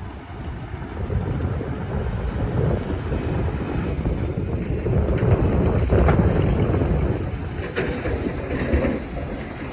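Excavator working under load: its engine runs hard with the bucket scraping and grinding against rock. The loudest stretch comes about five to seven seconds in, with a few sharp knocks.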